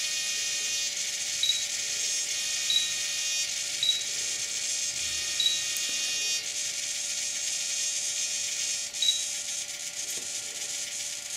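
Servos on an RC helicopter's swashplate whining and buzzing as the transmitter's pitch-trim knob is turned. The buzz eases after about six seconds, and a few short high beeps come through over it.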